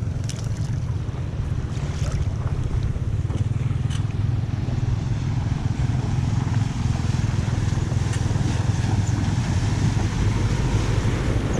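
Floodwater rushing steadily into a culvert drain, a continuous low rumble with wind on the microphone, and a few light clicks in the first few seconds.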